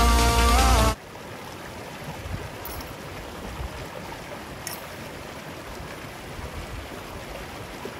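Background music that cuts off about a second in, then a small mountain stream running steadily over stones.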